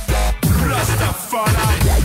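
Dubstep track with heavy bass and sliding synth sounds; the bass drops out briefly just past halfway.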